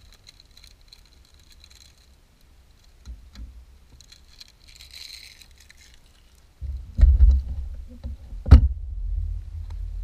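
Handling noise as a person brushes against the camera: faint scattered clicks and a light rustle, then, about two-thirds of the way in, a loud low rumble with knocks, the sharpest one about a second and a half later.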